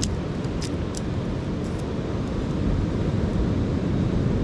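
Steady low rumble of wind on the microphone and ocean surf, with a few sharp clicks in the first second.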